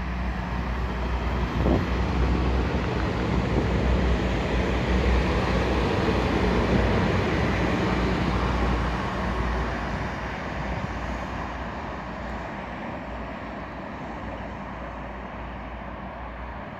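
Red-and-white VIAS regional multiple-unit train running past on the tracks, with a steady low hum under the rumble of the wheels. It is loudest about halfway through, then fades as the train moves away.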